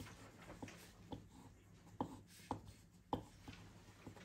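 Pencil scratching on paper in a handful of short, faint hatching strokes, sketching shadows onto a drawing.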